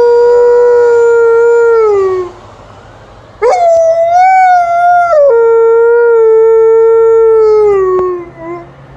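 Alaskan Malamute howling long and loud in two drawn-out howls. The first falls away and stops a couple of seconds in. After a brief pause the second starts on a higher note, drops to a lower held note and slides down to an end near the close.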